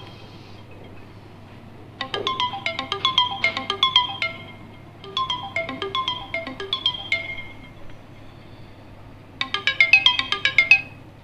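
Smartphone alarm ringing: a melody of quick, bright notes played in three bursts with short pauses between, over a faint steady hum.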